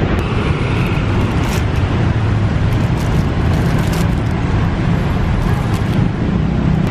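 Steady road traffic noise from a busy city street, with vehicles passing close by.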